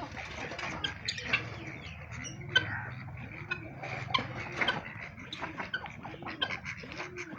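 Domestic birds calling together: a low, rising-and-falling cooing call repeats about once a second under many short, sharp high chirps and clicks.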